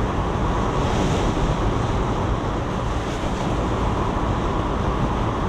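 Car driving on a wet road in rain, heard from inside the cabin: steady noise of tyres on the wet tarmac and rain on the windscreen.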